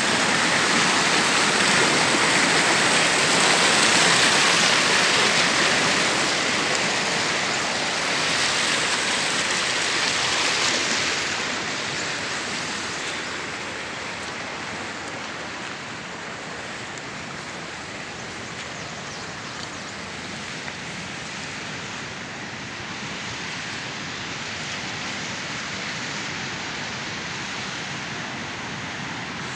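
Kunhar River's fast mountain water rushing over rocks in a steady roar, growing fainter about eleven seconds in and then continuing as a softer, steady rush.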